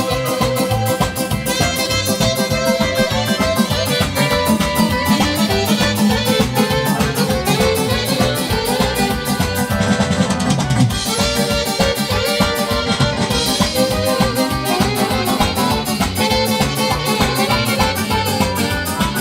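Live band playing an up-tempo instrumental dance tune: electronic keyboards over a steady drum beat, with electric guitar and saxophones.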